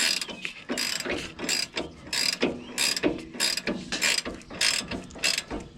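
Ratcheting wrench clicking in short back-and-forth strokes, about two a second, as an end link nut is run down.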